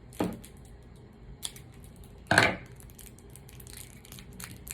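Gum wrapper crinkling and crackling as it is worked open by hand, with a few sharp clicks and one louder crackle about two and a half seconds in.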